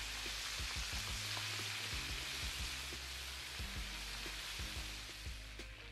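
Small seasoned fish deep-frying in hot oil in a wok, a steady loud sizzle of bubbling oil that eases off slightly near the end.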